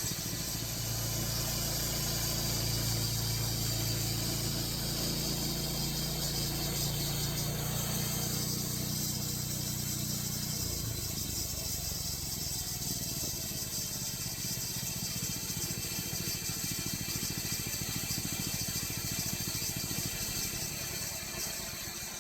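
Portable band sawmill running through a pine log: the mill's engine hums steadily under the noise of the band blade. About ten seconds in, the engine's low note changes and it carries on more evenly.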